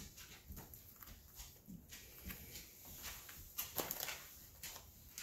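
Faint rustling and scattered small taps as hands smooth a strip of washi tape onto the plastic-covered canvas of a diamond painting. A few sharper clicks come a little before four seconds in.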